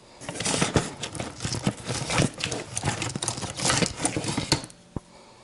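Handling noise close to the microphone: a quick run of rustles, clicks and taps as objects are picked up and turned over, with one sharp click near the end.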